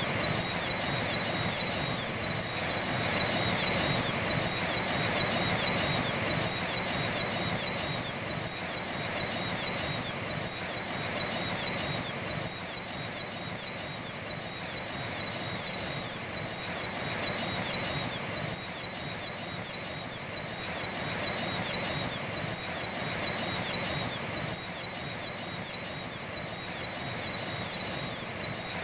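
Steady wash of sea surf, with a bird's short high chirp repeating rapidly and evenly throughout.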